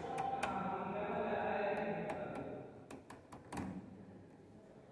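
Clicking of an analogue oscilloscope's detented rotary selector switches as the knobs are turned step by step. There are two clicks near the start and a quick run of four about three seconds in. A faint voice is heard in the background during the first two seconds.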